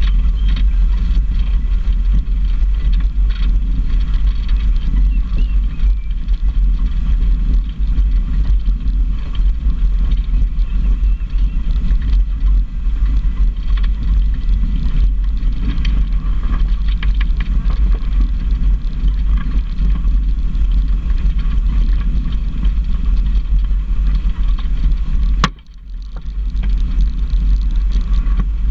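Off-road vehicle driving slowly over a gravel track, heard through a camera on its bonnet: a loud, steady low rumble with tyres crunching on the stones. Near the end a sharp click is followed by a brief cut-out of the sound.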